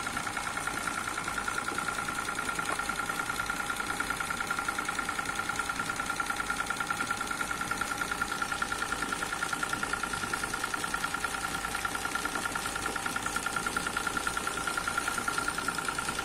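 Crop spray machine running: an electric motor belt-driving a piston spray pump, with a steady hum and a fast, even pulsing beat.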